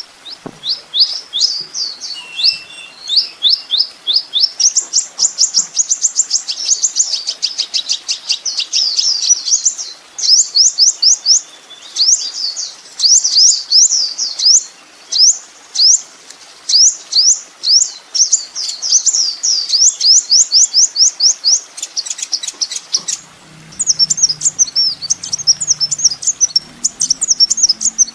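Sunbird (kolibri ninja) song from a masteran training recording: phrases of rapid, high, sweeping chirps, each a fast trill of repeated notes, broken by short pauses. About 23 s in the song changes to a denser, jumbled twittering over a faint low hum.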